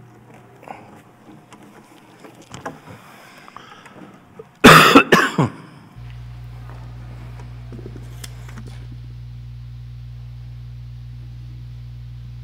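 An electric guitar's cable being plugged in live through the PA: faint handling knocks, then a very loud crackle with two or three pops about halfway through. It is followed by a steady low electrical hum from the now-connected guitar rig.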